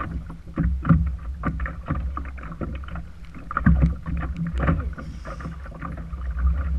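Wind buffeting the microphone with a steady low rumble, over irregular splashing and slapping of choppy sea water against a kayak hull.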